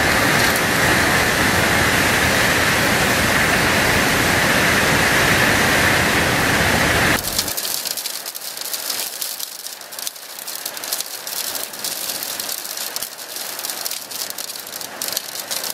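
Hailstorm: hailstones pelting down as a dense, steady roar that drops away suddenly about seven seconds in, giving way to a quieter patter of many sharp separate ticks as individual stones strike hard surfaces.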